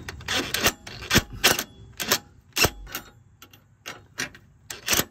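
Irregular sharp metallic clicks and clacks, roughly two or three a second, from hand tools and suspension hardware being worked on under a car.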